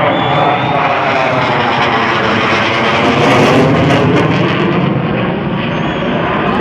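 Jet noise of a JF-17 Thunder fighter's single RD-93 turbofan as it passes, a loud continuous roar that swells to its hissing peak about three and a half seconds in and then eases off, its tone sweeping as the jet goes by.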